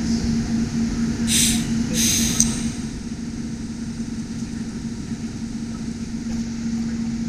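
TIG torch arc on mild steel, filling an old tapped hole: two short hisses about a second and two seconds in as the arc starts, then the arc running steadily over a constant low hum.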